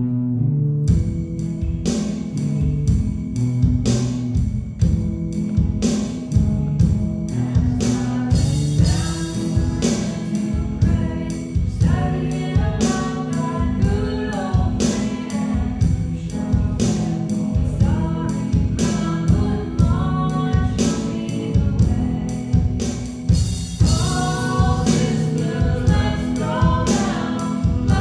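Worship song with a steady drum beat and bass, with singing voices joining about eight seconds in.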